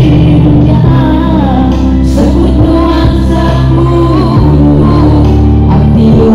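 Two women singing a pop song live into microphones over a loud backing track, amplified through a PA system.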